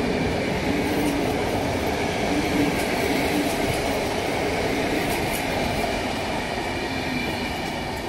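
Passenger coaches of a PKP Intercity train hauled by an EP07 electric locomotive rolling past: steady running noise of wheels on rail with a faint high squeal, easing slightly near the end as the train moves away.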